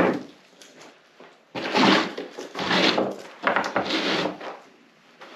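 A plywood sheet being slid and scuffed into place on a dirt floor: three rough scraping rubs in quick succession, about a second and a half in, around three seconds in and around four seconds in.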